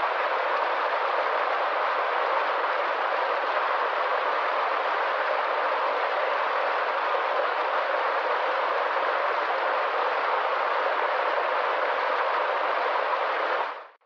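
Small waterfall splashing steadily into a rocky stream, an even rushing of water that fades out quickly near the end.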